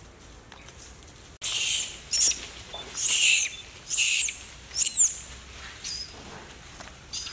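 Young long-tailed macaque screaming: a series of loud, high-pitched cries, some falling in pitch, about one a second, starting about a second and a half in.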